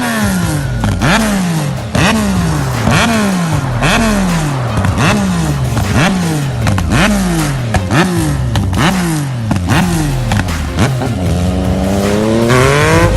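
Yamaha MT-09 three-cylinder engine through a Hurricane Evolution GP HR aftermarket exhaust, revved in quick blips about once a second, each falling back in pitch. Near the end comes one longer, rising rev.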